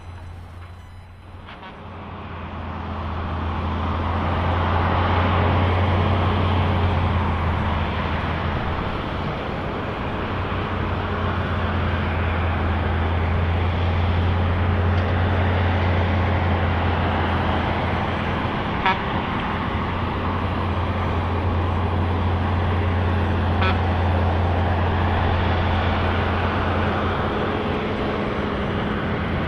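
Large cold milling machine running while it mills asphalt and conveys the millings into a dump truck: a steady low engine drone under a dense, rough cutting noise. Two short sharp knocks come about two-thirds of the way through.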